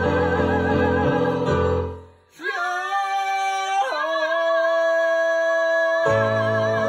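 A man and a woman singing a duet over an accompaniment. About two seconds in the sound fades away briefly, then the voices come back alone holding long notes with vibrato, and the accompaniment returns near the end.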